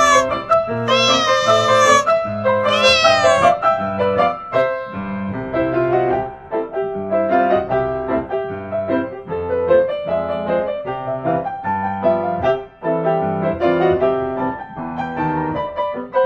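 Piano music playing a light melody, with two drawn-out cat meows, each falling in pitch, over it in the first few seconds.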